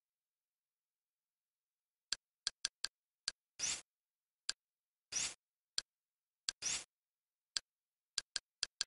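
Kodi's Confluence-skin interface sounds as the menus are navigated: silent for about two seconds, then a string of short, sharp navigation ticks as the cursor moves, with three longer hissy select sounds.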